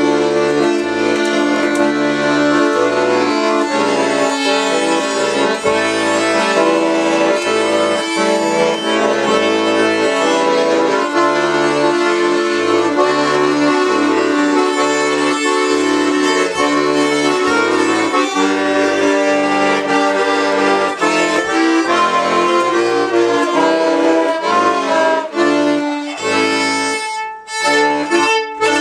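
Button accordion and violin playing a tune together: the accordion keeps a steady rhythmic bass-and-chord accompaniment under the melody, and the violin is played by a beginner of about a month. The music breaks off briefly near the end.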